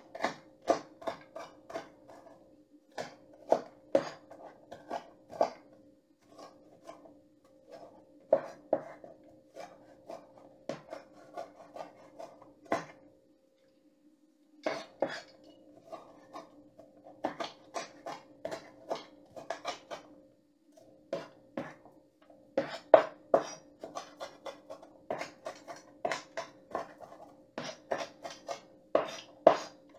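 Chef's knife chopping onion on a wooden cutting board: quick, irregular runs of knocks with a short pause about halfway through. A steady hum runs underneath.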